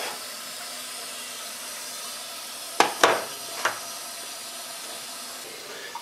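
Water hissing steadily through the supply pipe into a drained electric water heater tank as it refills, not yet full. A couple of sharp knocks sound about three seconds in.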